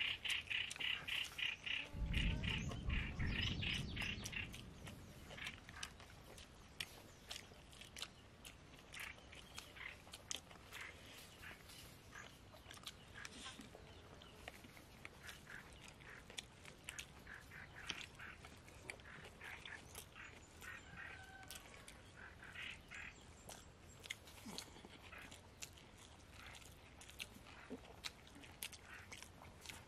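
Quiet eating sounds: chewing and soft clicks of hands and food on a plate. In the first few seconds a rapid chattering call repeats, and a low rumble comes about two seconds in.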